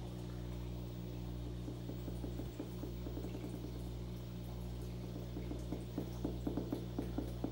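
Electric eel's electric discharges made audible as clicks over a steady electrical hum while it feeds: faint scattered clicks at first, then from about six seconds in a quick run of sharp clicks, several a second.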